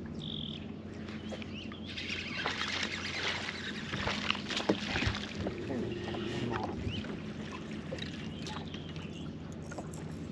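Steady low hum of a bass boat's electric trolling motor, with a rush of water noise swelling for a few seconds in the middle, scattered clicks and knocks, and a few short bird chirps.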